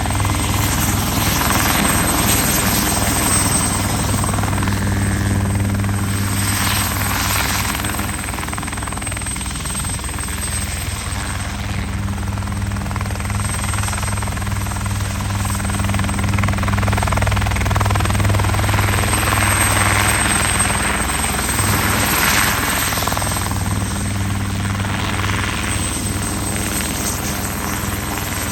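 A steady engine drone with a constant low hum. A rushing noise swells and fades every few seconds over it.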